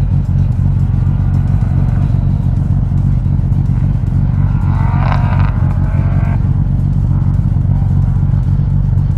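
A rally car engine idling steadily close to the microphone, with a brief higher warbling sound about five seconds in.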